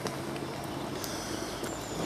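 Steady outdoor background hum and hiss with a few scattered light clicks, and a faint high whistle near the end.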